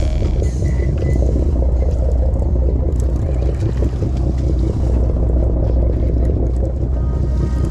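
Sportfishing boat's engine running steadily underway, a constant low drone with wind and water noise over it.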